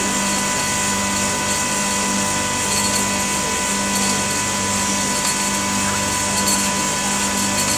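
Hoisting machinery running steadily, a constant motor hum with a high whine over a hiss, as the pulley block travels along its cables.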